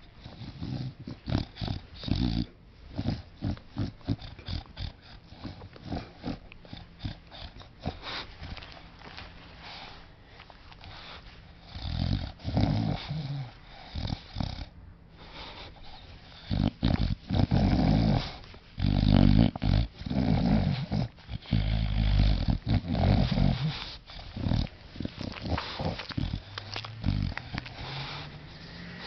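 A bulldog snoring: an irregular run of short noisy breaths, with louder, longer snores about twelve seconds in and again from about seventeen to twenty-three seconds.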